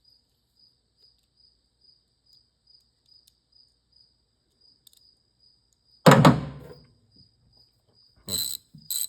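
A cricket chirping steadily, about two and a half chirps a second. About six seconds in there is one loud thunk, and near the end two sharp clicks.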